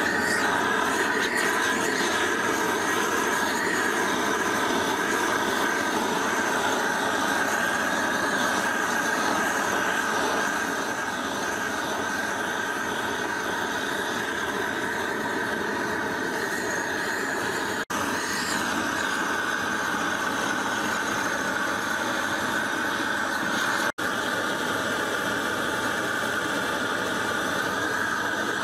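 Gas torch burner running steadily, a continuous rushing flame with a steady high whine, heating the anvil face before it is quenched to harden it.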